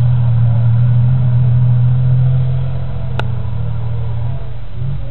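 Soviet T-55-type tank's diesel engine running with a steady deep drone that eases off slightly after about four seconds. A single sharp click a little after three seconds in.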